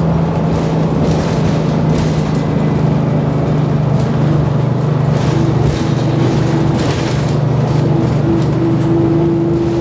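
Detroit Diesel 6V92TA two-stroke V6 diesel of an MCI Classic coach, heard from inside the bus while it drives, running with a steady drone. About halfway through, a higher steady whine joins it.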